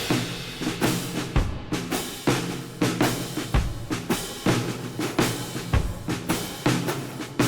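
Background music with a steady drum beat, bass drum and snare over a bass line.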